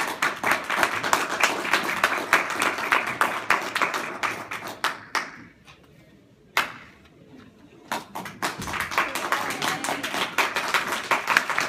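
Audience applauding. The clapping dies away about five seconds in, and after a lull broken by a single knock, a second round of clapping starts about eight seconds in.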